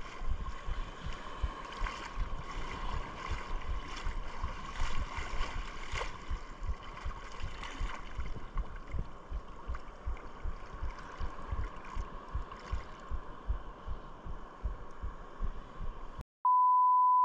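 Wind buffeting the microphone and water sloshing, with a faint steady whir from a spinning reel being cranked that fades out about halfway. Near the end the sound cuts out, a loud steady beep of about a second plays, and it cuts out again.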